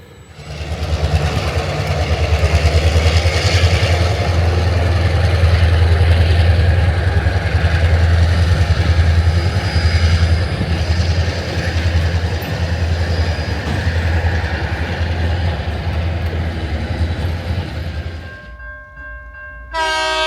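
EMD 645 diesel prime mover of a Tasrail 2050 class locomotive running loud and steady as it hauls a loaded coal train, with a deep throbbing hum. It cuts off abruptly near the end, and a short locomotive horn blast sounds just before the end.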